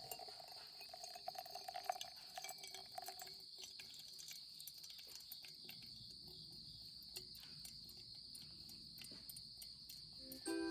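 Crickets chirring in a faint, steady, high-pitched drone, with a fainter mid-pitched tone in the first few seconds.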